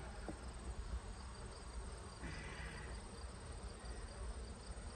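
Honeybees humming steadily around an open hive as a frame of bees is lifted out, with a faint, evenly repeating insect chirping.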